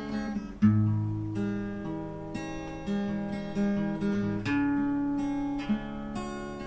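Background music: a solo acoustic guitar playing plucked single notes and low bass notes that ring and fade.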